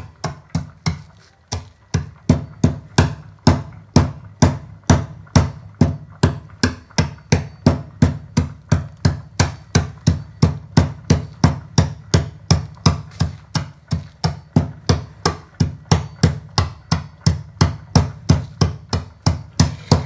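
Dry dog kibble being crushed by repeated blows of a heavy metal bar wrapped in black plastic, at about three knocks a second with a brief pause about a second in.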